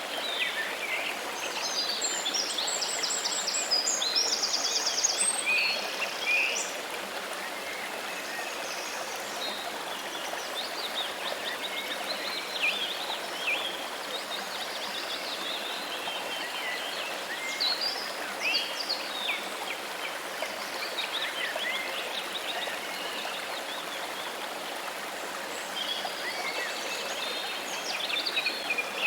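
Steady rush of running water, with small birds chirping and trilling over it. The busiest run of trills comes a few seconds in.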